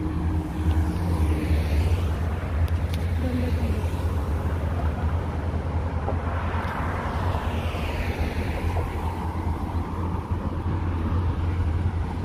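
Wind buffeting the phone's microphone as a steady low rumble, over road traffic. A vehicle passes by, swelling and fading about six to nine seconds in.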